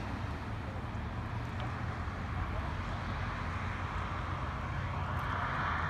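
A vehicle engine running steadily under a noisy rush that grows louder near the end.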